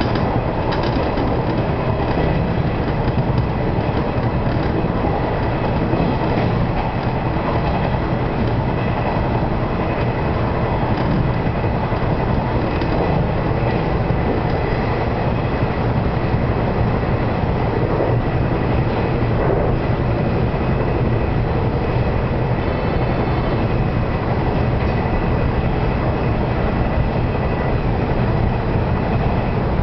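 Steady running noise inside the cab of a JNR-liveried 475 series electric multiple unit travelling at speed: a low motor and wheel hum with rail noise, and a few clicks of wheels over rail joints.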